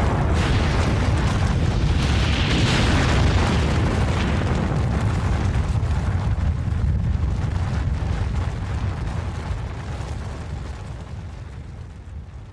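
Sound effect of an atomic bomb blast: a continuous deep, rumbling roar that swells about two to three seconds in and then fades away over the last several seconds.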